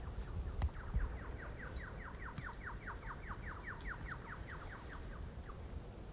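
A bird singing one long trill of about five or six quick falling notes a second, fading out near the end, over a low steady rumble. Two soft thumps come about a second in.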